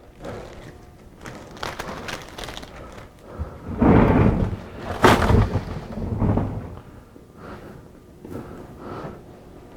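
A heavy cardboard box of scaffold parts being opened and handled: cardboard rustling and scraping, with heavy thumps about four and five seconds in.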